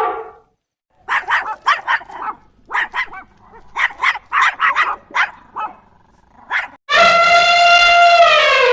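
A dog barking in quick runs of short, sharp barks, followed about seven seconds in by a long, steady, unbroken call that drops in pitch at its end.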